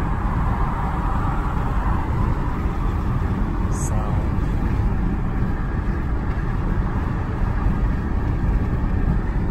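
Steady road noise inside the cabin of a 2005 Honda Accord cruising on a highway, a low, even rumble of tyres and engine with no change in pace.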